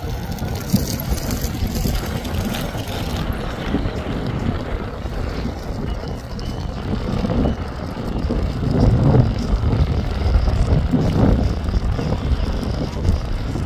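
Large motor yacht's engines and churning wake making a low, steady rumble, with wind buffeting the microphone in stronger gusts over the second half.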